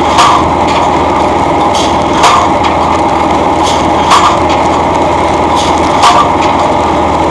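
Pile driver running: its hammer strikes the pile about every two seconds, four sharp blows in all, over the steady running of its engine.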